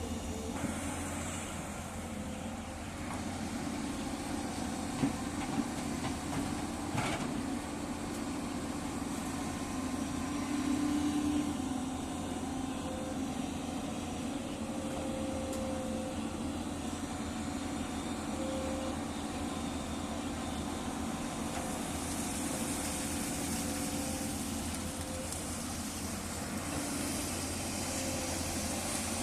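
Excavator diesel engine running steadily, with a few short knocks, the clearest about seven seconds in.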